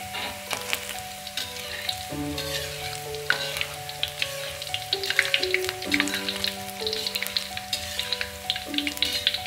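Sliced garlic frying in hot oil in a wok, with a steady sizzle and many small crackles. Background music with a simple melody plays under it.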